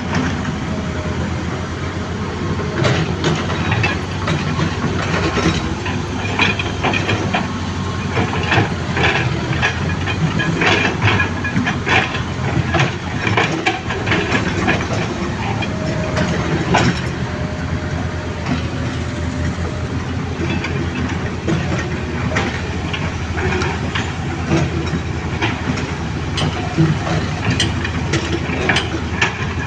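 Excavator running steadily under a continuous low engine rumble and hiss, with frequent short metallic knocks and clanks throughout.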